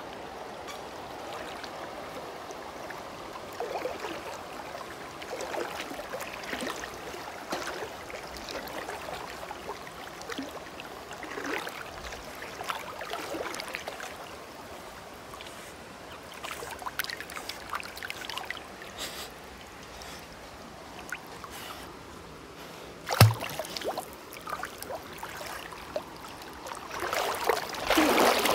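River water splashing and lapping around a swimming dog, over the steady rush of the stream. A single sharp knock sounds about two-thirds of the way in, and the splashing gets louder and closer near the end.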